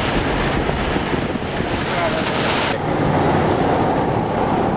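Strong wind rushing over the microphone, a dense steady rushing noise; a little under three seconds in, the high hiss drops off suddenly and a lower rush carries on.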